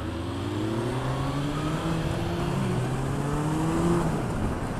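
Motorcycle engine accelerating under way, its pitch rising steadily for about four seconds and then dropping just before the end.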